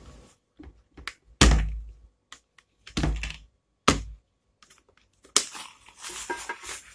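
Plastic lid and handle clips of a mini rice cooker being worked by hand: three loud thunks about 1.5, 3 and 4 seconds in, with lighter clicks between them. Then a crinkly rustle of plastic wrapping as the lid comes off near the end.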